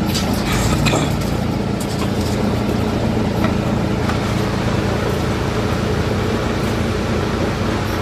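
Heavy machinery running steadily: a wheel loader's diesel engine close by together with a BSR-HX400C wood chipper running, a low steady hum. A few sharp cracks come in the first second or so.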